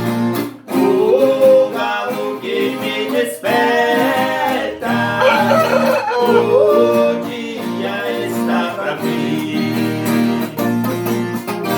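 Viola caipira playing the instrumental ending of a sertanejo worship song, plucked strings with the last notes left ringing.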